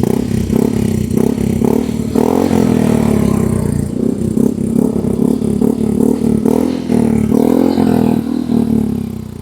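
Yamaha Mio i 125 scooter's single-cylinder engine, breathing through a freshly fitted HUN Pipe V2 aftermarket exhaust with its silencer insert in place, being revved over and over, its pitch rising and falling with each blip of the throttle. Near the end it eases off.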